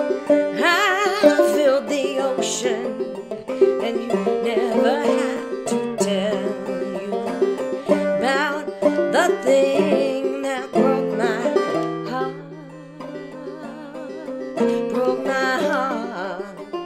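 A banjo being picked, with a woman singing wavering phrases over it at several points.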